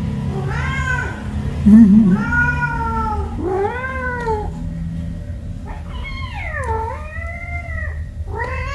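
Kittens meowing repeatedly in high, arching calls, about five in all, the longest one near the end dipping in pitch and rising again. A brief loud low warbling sound comes about two seconds in.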